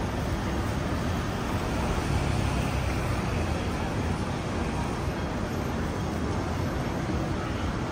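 City street traffic: road vehicles running past in a steady low rumble, a little louder about two to three seconds in.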